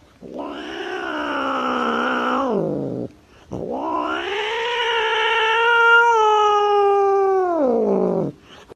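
Domestic cat yowling: two long, drawn-out caterwauls, the second longer and louder, each sliding down in pitch as it ends.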